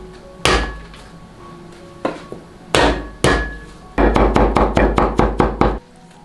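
Cleaver chopping peeled water chestnuts on a thick wooden chopping block. A few single heavy chops come first, then a quick even run of about six chops a second for nearly two seconds, stopping shortly before the end.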